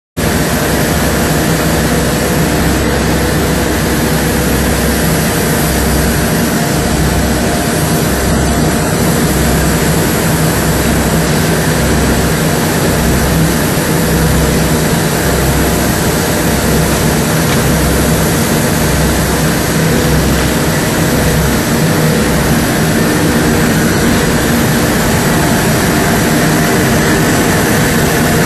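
Single-stage plastic film recycling and granulation line running under load, a steady loud machinery noise with a low throb that pulses about once a second.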